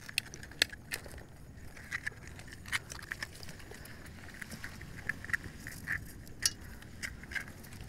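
Scattered sharp clicks and taps heard underwater, irregular and a few to the second, the loudest about half a second in and again near the end, over a low steady background noise.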